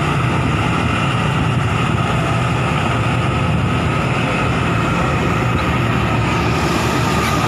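Excavator's diesel engine running steadily, with a steady high whine over the low engine rumble.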